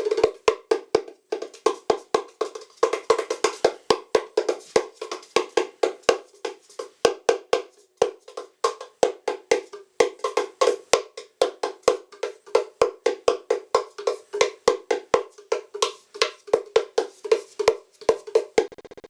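Hand-made wooden drum with a thin solid-wood top being played by hand: a fast run of hollow, pitched knocks, several strokes a second, with a few brief pauses.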